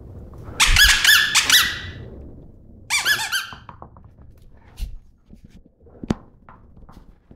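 Squeaky tennis ball bitten by a puppy: two quick runs of loud squeaks, the second shorter. A couple of sharp knocks follow later.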